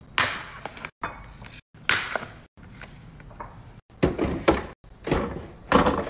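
Food packages and plastic containers being handled and set down in a fridge: a plastic salami pack being slit with a knife, then a run of short knocks, clunks and rustles. The sound comes in brief snippets broken by abrupt silent cuts.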